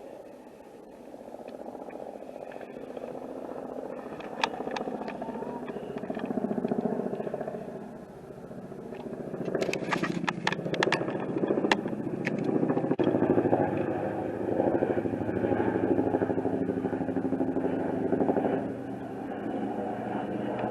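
An engine running steadily, growing louder about two-thirds of the way through, with a few sharp clicks near the middle.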